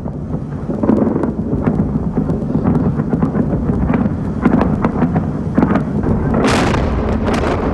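Bomb explosions during the 2003 air bombardment of Baghdad: a continuous heavy rumble with many sharp cracks, and one big blast about six and a half seconds in.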